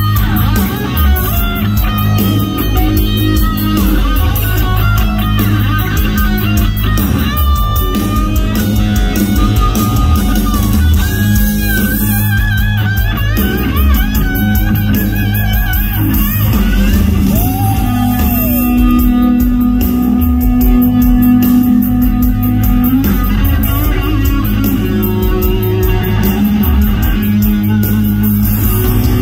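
Live hard-rock band playing loud. A hollow-body electric guitar plays a lead line of bent, wavering notes over drums and bass guitar, holding one long low note a little past halfway.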